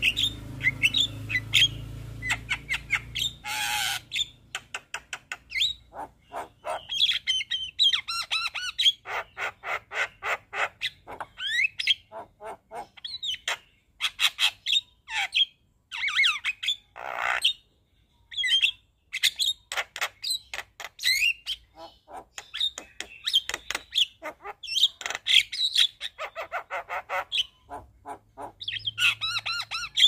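Javan myna singing a long, varied song: quick runs of sharp clicking notes, whistled glides and harsh squawks, broken by short pauses, the longest a little past halfway.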